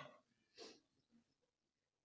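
Near silence: room tone, with one faint short tap about half a second in.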